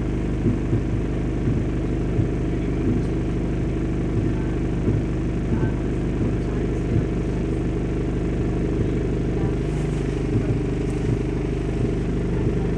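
Interior of a diesel single-deck bus: the engine's steady low drone heard from inside the cabin, with frequent short knocks and rattles from the bodywork and fittings.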